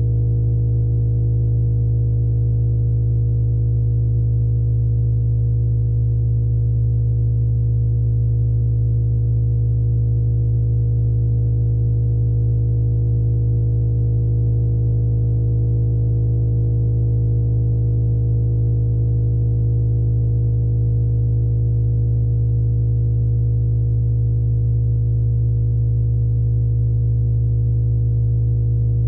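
Steady, low electronic drone made of several unchanging tones layered over a strong low hum, with no pulses or changes in pitch. It is a 'sound of the solar system': space data turned into sound.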